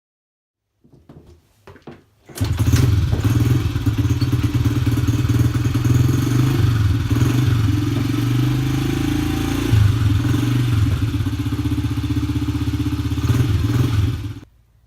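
Honda CRF70F's small single-cylinder four-stroke engine starting after a few brief clunks about two seconds in, then idling steadily to warm up its fresh oil, until it cuts off near the end.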